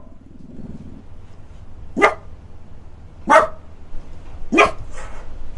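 A dog barking: three single sharp barks, evenly spaced roughly a second and a quarter apart.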